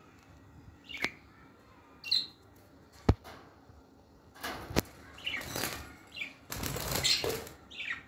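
Lovebirds and budgerigars flapping their wings in a wire cage, with short chirps and a couple of sharp clicks; the flapping comes in bursts in the second half, loudest near the end, as a hand reaches in to catch them.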